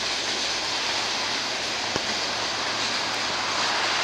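Freight train cars rolling past, a steady hiss of steel wheels on the rails, with one short click about two seconds in.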